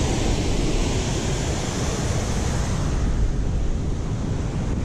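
Steady rushing noise of wind buffeting the microphone mixed with moving spillway water, its high hiss easing off about three seconds in.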